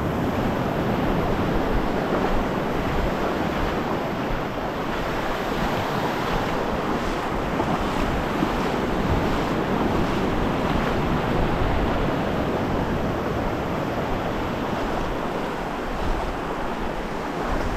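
Ocean surf washing steadily onto the beach, with wind rumbling on the microphone.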